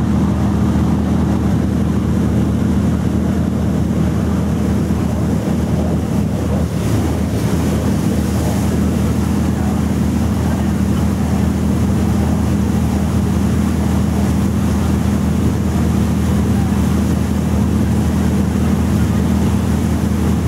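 Boat diesel engine running with a steady low drone, over a wash of water and wind on the microphone.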